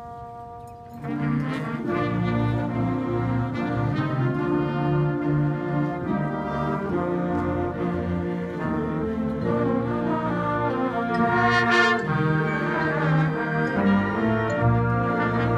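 High school marching band playing: a soft held chord, then about a second in the full brass section comes in loudly and plays on with percussion.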